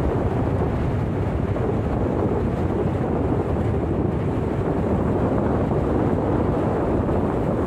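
Steady wind buffeting the microphone over open sea: a dense, even low rumble with the wash of choppy water.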